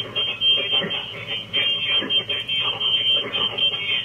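Ham radio receive audio played through the computer's speaker: an indistinct voice coming over a narrow, thin, telephone-like channel, rising and falling in syllable-like surges.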